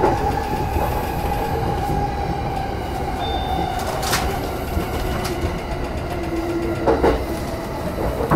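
Electric train running noise from a JR Yamanote Line E235-series train: a low rumble with steady electric motor tones, and a couple of sharp wheel clicks about four and seven seconds in.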